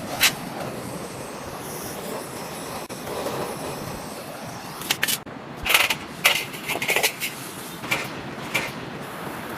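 A steady rushing noise with scattered sharp knocks, and a run of louder clattering rattles from about halfway through.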